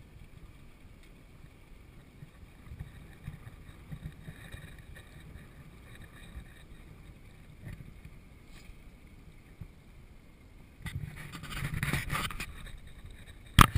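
Open-air ambience on a small fishing boat: wind on the microphone and water against the hull, steady and fairly quiet, rising in a louder gust of noise near the end.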